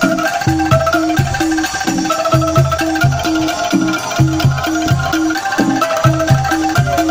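Bamboo angklung music: a melody of held notes over a steady, repeating pattern of short low notes.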